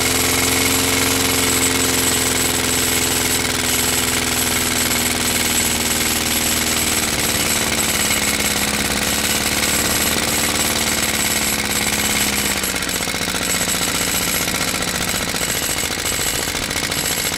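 Walk-behind lawn mower's small single-cylinder engine running steadily on gasoline vapor drawn through a hose from a sock-stuffed jar, with a rapid pounding exhaust beat. A steady humming tone over the engine fades out about thirteen seconds in.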